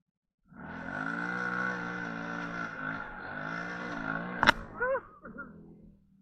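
TGB 550 quad's engine running under throttle, cutting in suddenly about half a second in. A sharp click comes about four and a half seconds in, then a few short rises and falls in pitch before the sound fades out.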